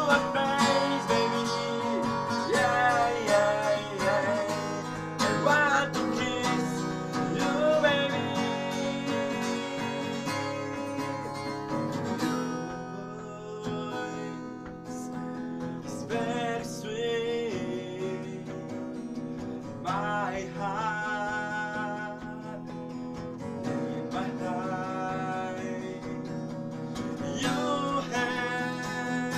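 A man singing to his own strummed acoustic guitar. About halfway through, the playing thins and quietens for a few seconds before the voice and strumming return.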